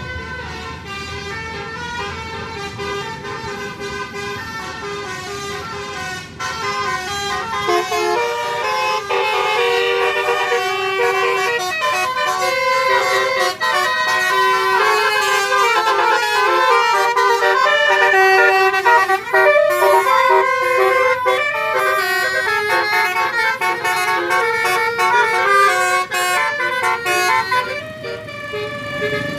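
Tour bus's Basuri telolet horn playing a fast tune of quickly changing notes. It grows louder from about eight seconds in and drops away near the end as the bus passes.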